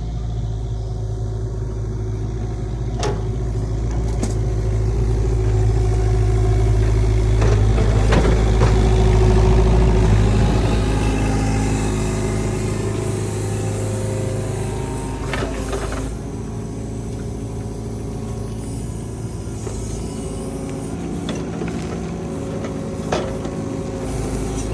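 An engine running steadily with a low hum. It grows louder toward the middle and eases off after, with a few sharp clicks over it.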